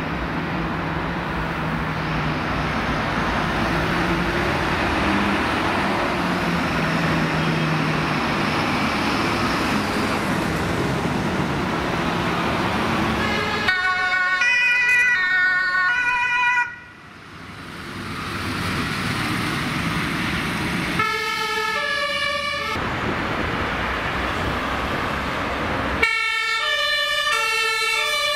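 Fire engines and an ambulance pulling away, their diesel engines running with road noise. From about halfway in, two-tone emergency sirens sound in alternating high and low notes, in several stretches, cut off suddenly once.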